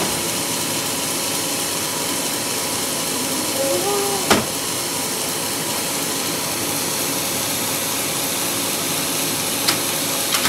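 Sawmill bandsaw machinery running steadily with a hiss. A brief shout comes about four seconds in, just before a sharp knock, and two more sharp knocks come near the end.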